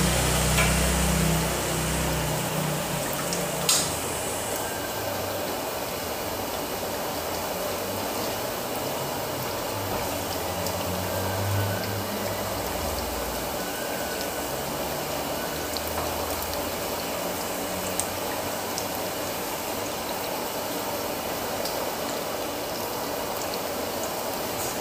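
Tom yum soup bubbling at a simmer in a metal wok, stirred with a ladle at first. One sharp clack about four seconds in.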